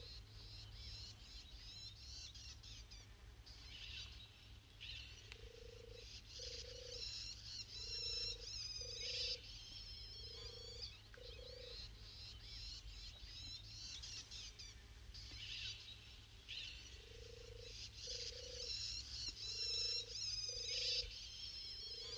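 Wild birds calling in woodland: a low two-note call repeated in pairs every second or two, pausing midway, over continuous high twittering song.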